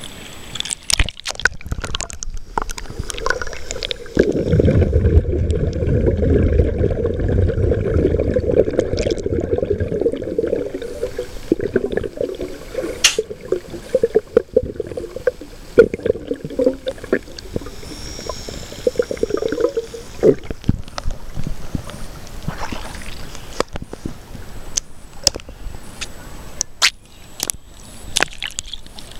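Shallow seawater sloshing and gurgling against a camera held at the surface, with scattered splashes and droplet clicks. From about four seconds in until about twenty seconds the sound turns to a dense, muffled low noise as the camera is underwater.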